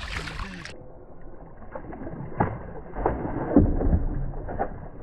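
A splash at the start, then a string of irregular knocks and thumps against a fishing kayak as a hooked smallmouth bass thrashes alongside and is brought aboard, the loudest knocks a little past the middle.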